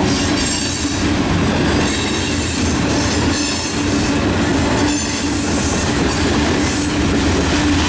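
Freight cars of a Norfolk Southern mixed freight train rolling past: a loud, steady rumble of steel wheels on the rails with a steady whine over it.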